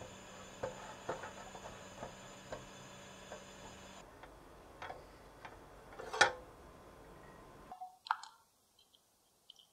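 Silicone spatula stirring warm cream in an enamel saucepan, ticking lightly against the pan about twice a second, with one sharper knock about six seconds in. Near the end, a few faint sounds as the cream is poured onto chopped chocolate in a glass bowl.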